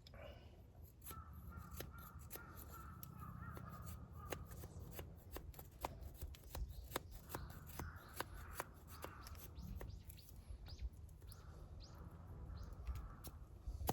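Many quick clicks and rustles of things being handled, with harsh bird calls in the background at times.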